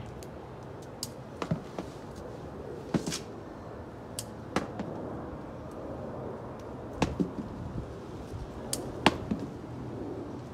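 Irregular sharp clicks and snaps, about a dozen, from hand-picking tắc (calamansi) off a dense bush, with fruit being snapped or clipped from the stems and dropped into a bucket.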